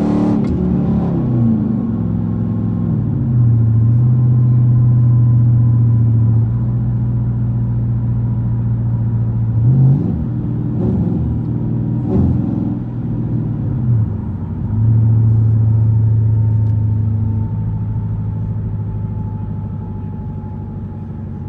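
Inside the cabin, the straight-piped exhaust of a 2013 Chrysler 300C's 5.7 L Hemi V8 (gutted catalytic converters, no resonators, no mufflers) gives a steady low drone while the car drives along. Its pitch drops at the start, shifts briefly twice around the middle, then climbs and settles again. Near the end it grows quieter as the car slows.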